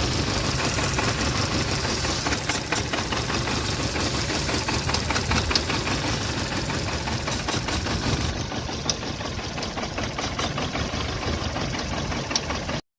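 VW Polo Vivo 1.4 CLP petrol engine idling with a misfire, which the mechanic puts down to a failed number 1 ignition coil and a broken PCV valve pipe. The sound cuts off suddenly near the end.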